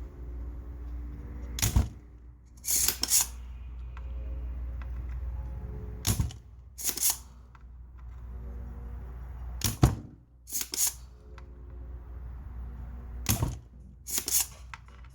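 Spring-loaded desoldering pump (solder sucker) being cocked and fired, sucking molten solder out of the MOSFET holes on the amplifier's circuit board. It gives sharp snaps, about nine in all and often in quick pairs, over a low steady hum.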